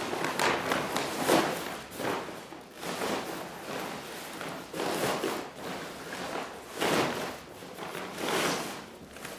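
Large sheets of paper crumpling and rustling as they are pushed into a hessian sack, with the sack itself rustling, in irregular bursts.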